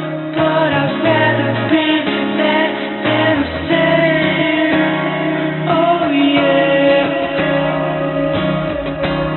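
Background music with a female voice singing over guitar-like accompaniment.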